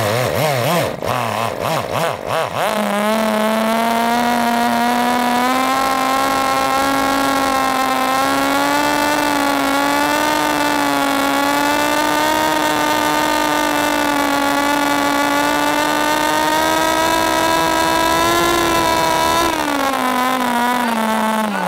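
Toyan 2.4 cc miniature Wankel rotary engine spun by an electric starter motor, catching a few seconds in and then running on its own at full throttle. It gives a steady high-pitched note that climbs slowly as it gains speed, then drops in pitch near the end as it slows.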